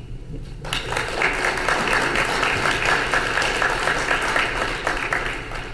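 Audience applauding. The clapping starts suddenly under a second in and dies away near the end.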